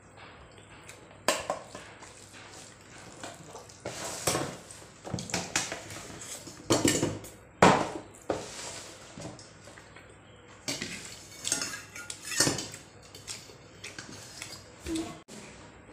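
Fingers mixing and scooping rice and curry on a plate, with irregular clicks and scrapes against the plate.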